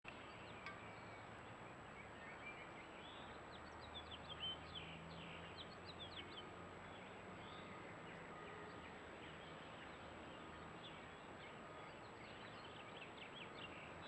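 Faint birdsong and short chirping calls from several songbirds, busiest a few seconds in and again near the end. Under them runs a steady hiss with a thin, high steady tone.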